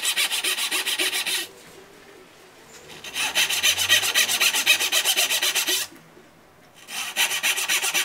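Japanese back saw (dozuki) cutting a dovetail into the end grain of a wooden board with quick, even strokes, a dry rasping of teeth through wood. The sawing comes in three runs with two short pauses between them.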